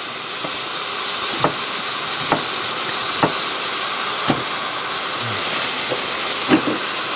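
Beef and onion sizzling as they brown in a hot pot: a steady hiss with a sharp pop of fat about once a second.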